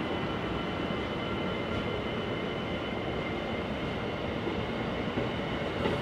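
Train running through the station: a steady noise of the moving train with several faint high steady tones.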